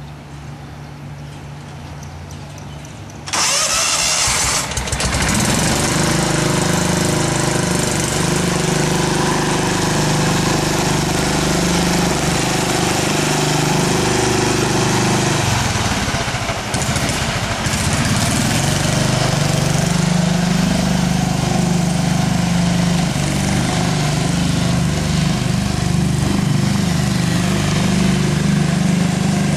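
John Deere STX-38 riding mower engine starting: a low hum, then it starts abruptly about three seconds in and runs steadily, its note shifting briefly about halfway through.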